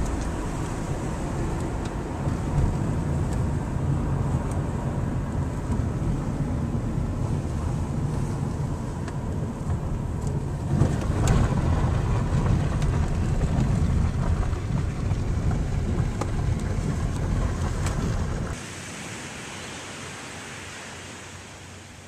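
Car cabin noise while driving: a steady low rumble of engine and tyres on the road. About eighteen seconds in it cuts to quieter surf and wind by the sea.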